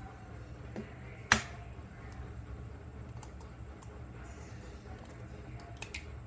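An egg knocked once, sharply, against the rim of a stainless steel bowl about a second in, followed by faint clicks and taps of the eggshell being handled and pulled apart, with a couple of sharper clicks near the end.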